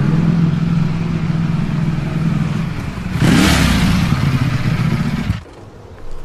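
Ducati Panigale V4 motorcycle's V4 engine running with a steady note, then a louder burst of revving about three seconds in. The sound cuts off abruptly near the end.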